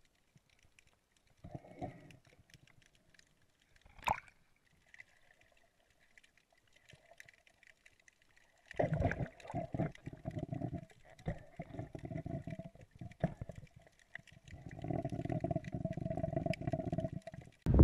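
Underwater gurgling and bubbling picked up by a submerged camera, coming in choppy stretches of a couple of seconds from about halfway through, after a quiet start with two faint knocks.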